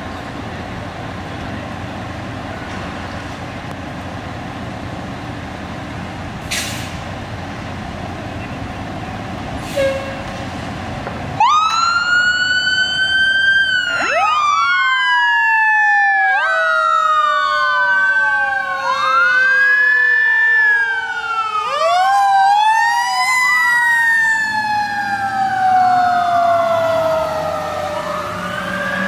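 Steady rumble of fire apparatus waiting in the hall, with two short, sharp hisses. About eleven seconds in, fire truck sirens start up loudly as the units respond: several wails rising and falling out of step with each other.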